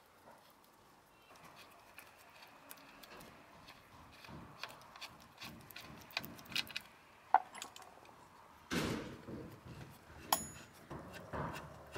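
Quiet handling noise of a loosened bolt on an outboard's lower unit being turned out by hand: scattered light clicks and taps. A short scuffing rustle comes about nine seconds in, and a sharp metallic tick with a brief ring just after ten seconds.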